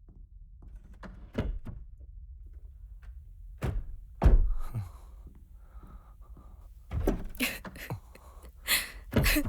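A door thudding shut and several other dull knocks and thuds indoors, the loudest about four seconds in.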